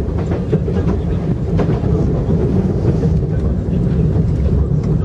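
KTX high-speed train running, heard from inside a passenger car: a steady low rumble with an occasional faint click from the wheels on the track.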